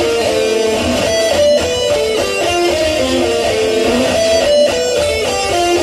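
Electric guitar playing a fast riff of single picked notes, several a second, in stepping melodic runs that repeat as a phrase.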